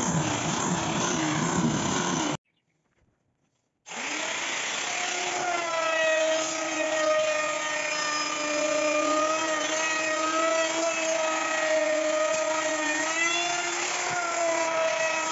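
An angle grinder fitted with a sanding disc sands the face of a wooden door, stopping abruptly about two seconds in. After a short silence, a handheld electric router runs with a steady high whine as it cuts a moulded profile along the edge of a door panel, its pitch dipping briefly near the end.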